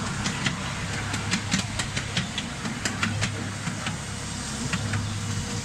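Miniature railway train running along the track, heard from an open passenger carriage: a steady low running rumble with many sharp, irregular clicks and rattles from the wheels and carriages on the rails.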